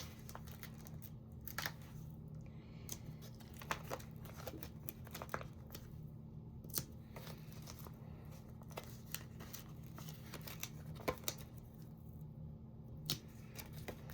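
Faint handling of cardstock and paper: scattered light taps, clicks and rustles as paper pieces are picked up, peeled and set down, with a steady low hum underneath.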